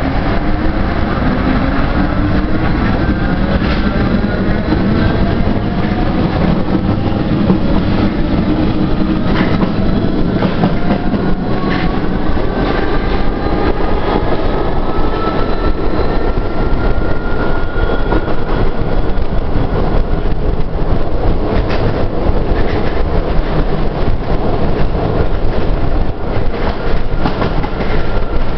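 MF67 Paris Métro train accelerating from a station into the tunnel, heard from inside the car: a loud steady rumble with several whines that climb in pitch as it gathers speed and level off near the end. Wheels click over rail joints throughout.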